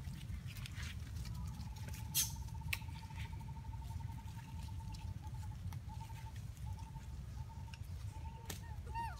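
Outdoor ambience: a steady low rumble under a long, rapidly pulsed trill that breaks into short bursts after the middle, with a few sharp clicks, and short falling chirps near the end.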